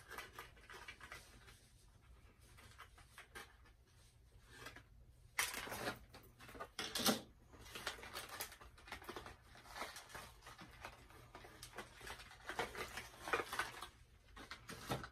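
Handling of doll packaging: irregular rustling and crackling as a doll is worked free of its box insert, loudest about five and seven seconds in.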